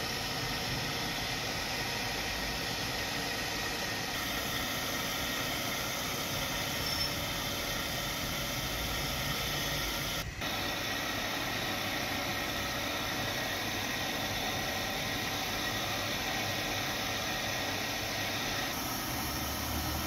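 Wood lathe spinning a wooden shovel handle while it is hand-polished, giving a steady whirring hiss with a steady motor hum. There is a brief break about halfway through.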